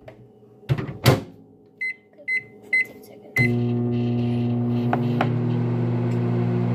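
Microwave oven being started: a couple of knocks, four short keypad beeps about half a second apart, then the oven starts running with a steady hum.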